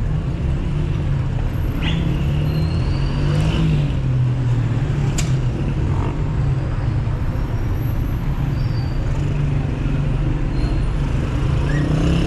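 Steady low rumble of street traffic and riding noise heard from a moving bicycle, with a few short high squeaks and one sharp click about five seconds in.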